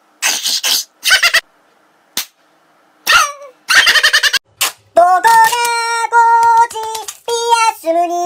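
A man's short loud vocal outbursts and a scream. From about five seconds in, a high sung melody of held notes at steady pitches.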